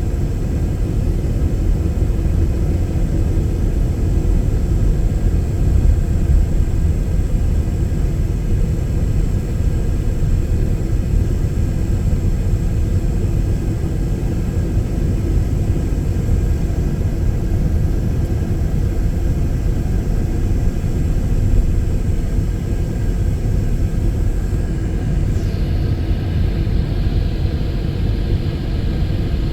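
A van being driven, with a steady low rumble of engine and road noise.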